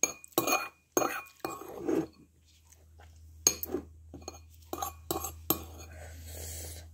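A metal spoon scraping and clinking against a ceramic bowl as the last food is scooped out: a run of short, sharp clinks and scrapes, about nine in all, a few of them in quick pairs.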